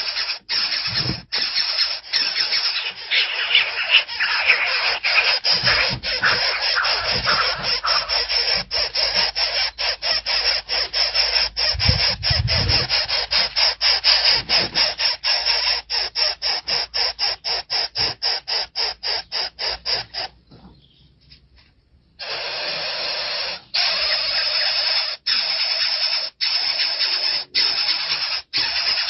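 Hawk chicks begging at the nest: a rapid, insistent run of squealing cheeps, about three a second, which stops for a moment about twenty seconds in and then starts again.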